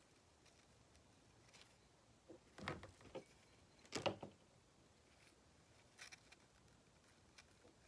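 Faint handling sounds over near silence: a few light knocks and clatters, the loudest about four seconds in.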